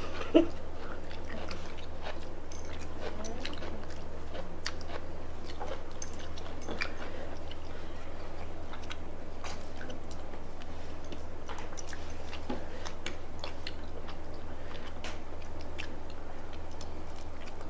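Close-up chewing and biting of food, with scattered small wet clicks and smacks throughout, over a steady low hum.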